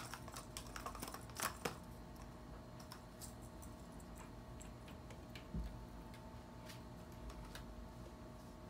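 A kitten scuffling and pouncing after a feather wand toy on carpet and a cardboard scratcher: scattered light ticks and scratches, a quick run of sharper clicks in the first two seconds, and a soft thump about halfway through.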